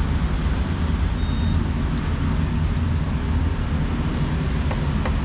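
Steady low rumble of street traffic, with a few faint knocks of a meat cleaver on a wooden chopping block.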